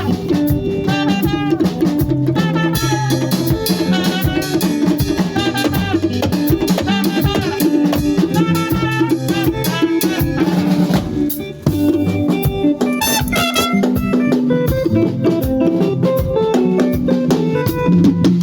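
Music with a drum kit keeping a steady beat under pitched melody instruments; the sound briefly drops out about eleven and a half seconds in.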